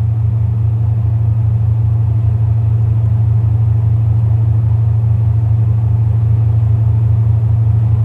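Steady low drone of a ship's running machinery, an even hum that does not change.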